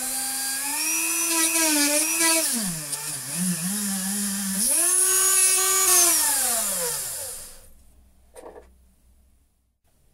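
A small high-speed electric drill drilling a radial hole into a brass sleeve on a lathe. The motor whines at speed, and its pitch drops and wavers as the bit cuts into the brass about two and a half seconds in. The pitch recovers, then the motor spins down and stops. A single short click follows.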